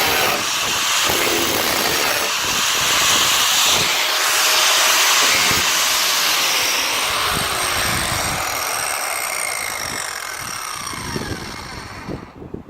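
Angle grinder grinding out spot welds in steel car floor panel, a loud steady hiss; over the last few seconds its pitch slides down and the sound fades as the disc spins down, stopping just before the end.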